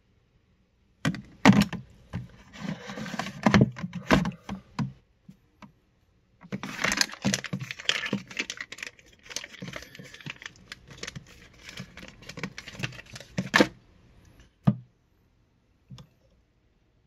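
Crinkling plastic and clattering knocks as a fully thawed soft ice pack and a plastic container are handled inside a hard plastic cooler, in two long stretches of busy handling, then a couple of single knocks near the end.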